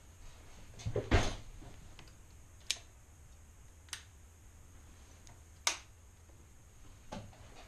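Small objects handled on a desk: a louder scuffing knock about a second in, then three sharp, separate clicks a second or more apart and a fainter one near the end.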